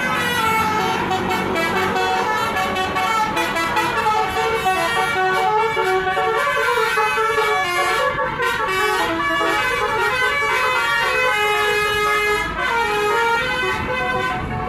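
Bus telolet horns, the multi-tone musical air horns of Indonesian buses, playing a continuous run of short notes that step up and down in pitch.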